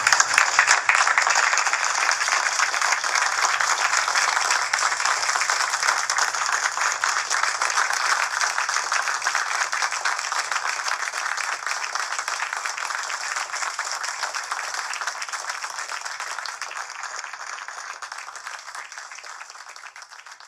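A roomful of mission controllers applauding, many hands clapping together, the applause slowly dying away through the second half.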